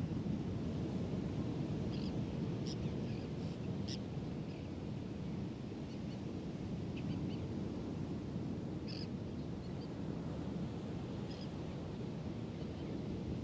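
Steady low wash of distant ocean surf, with short high bird chirps scattered every second or two.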